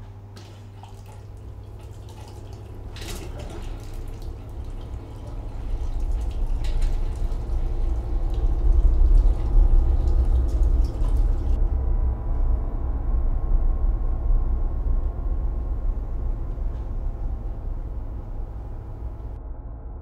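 A deep, low rumble that swells over several seconds, is loudest around the middle, then slowly fades. A few faint clicks sound in the first few seconds.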